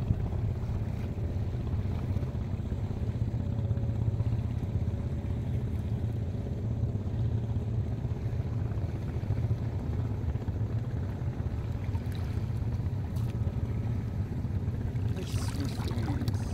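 Steady low rumble of wind and sea water around a wading fisherman as he hauls in a cast net. About a second before the end, water splashes and drips as the net is lifted out of the sea.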